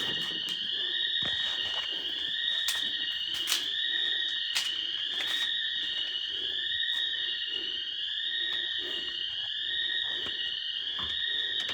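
Building intruder alarm siren sounding, a high-pitched rising whoop that repeats about every one and a half seconds, with scattered light clicks and knocks.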